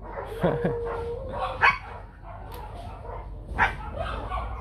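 Bắc Hà dogs barking and yelping, with three loud sharp barks spread through the few seconds and quieter yips between them.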